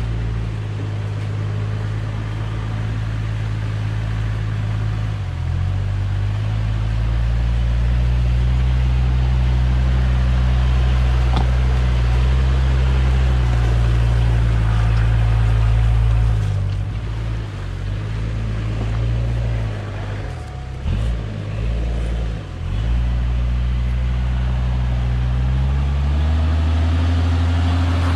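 Toyota Land Cruiser 70-series 1HZ diesel engine running at low revs as it crawls over rocks. Its steady low note falters and dips several times in the second half, then rises near the end as the engine is given more throttle.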